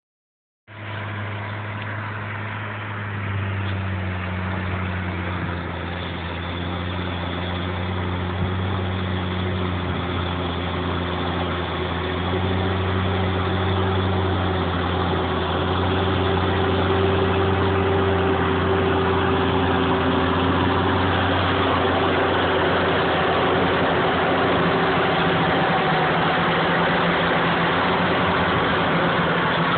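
Fendt 716 tractor's six-cylinder diesel engine running steadily under load while pulling a 3-metre Gaspardo cultivator through the soil, growing louder as the tractor approaches and passes close by.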